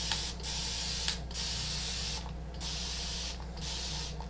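Hand-held spray bottle misting water onto a pressing sheet in a run of about five sprays, each most of a second long with brief breaks between them. It is dampening the applique before it is fused with the iron.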